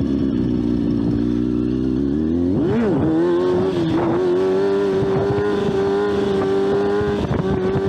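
Motorcycle engine running steadily under way. About three seconds in, the revs drop and climb again, then hold steady at a slightly higher pitch.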